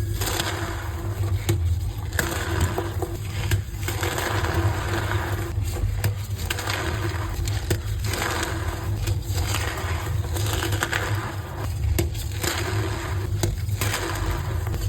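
Reformed gym chalk blocks being crushed and crumbled: continuous crunching and scraping with many sharp cracks throughout, over a steady low hum.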